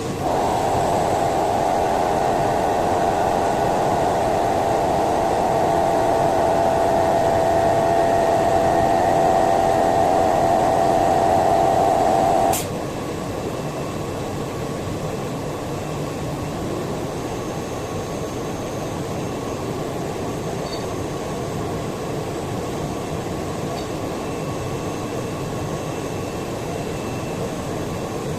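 Woodworking CNC router at work: a loud spindle-and-cutting noise with a steady tone for about twelve seconds, which stops suddenly with a click, leaving a steady whirring machine noise.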